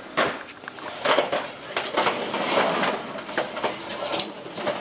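Irregular clattering and tapping of hard objects: a quick string of knocks and clinks.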